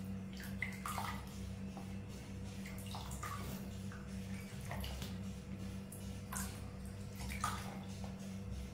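Water in a small bath splashing and dripping in short, irregular splashes as a baby monkey moves in it, over a steady low hum.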